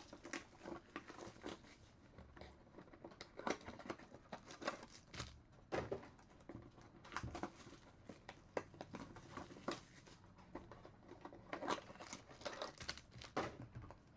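Plastic shrink-wrap on a trading-card box crinkling and tearing as it is stripped off by hand, in irregular crackles.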